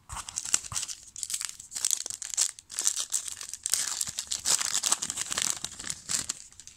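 Foil wrapper of a Topps Big League Baseball trading-card pack crinkling and tearing as it is ripped open and the cards are slid out, a dense run of quick crackles.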